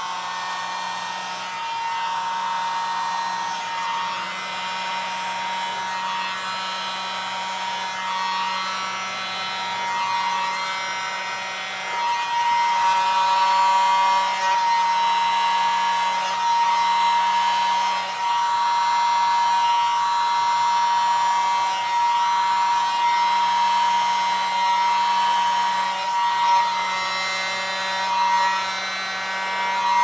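Tiny handheld electric air blower running steadily, its motor giving a high, even whine; it gets louder about twelve seconds in and dips briefly a few times.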